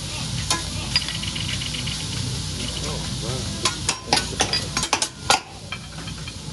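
Shrimp and scallops sizzling on a hibachi steel griddle, with a metal spatula scraping and clinking on the plate; a quick run of sharp clinks comes about four to five seconds in.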